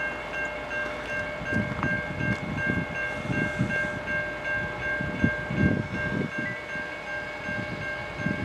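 Railroad crossing warning bell ringing steadily with the gates down, signalling an approaching train, over an uneven low rumble.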